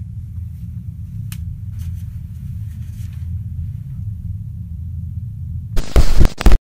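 Low, steady rumbling drone with a few faint clicks over it, broken near the end by loud bursts of harsh glitch noise that cut off abruptly.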